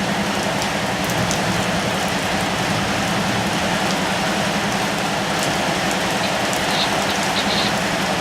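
Steady rain falling, an even hiss with scattered drop ticks, over a low steady hum.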